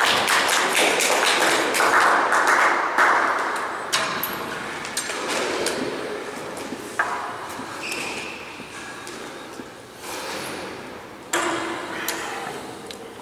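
Sharp knocks and taps echoing in a glass-backed squash court, thick over the first few seconds and then sparse, with one louder thump near the end.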